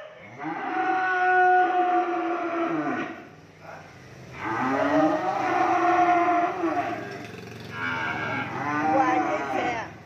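Cattle mooing: three long moos, each lasting two to three seconds, with short pauses between them.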